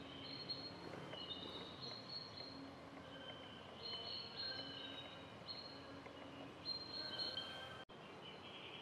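Faint music of high, held notes, with an instant's dropout near the end.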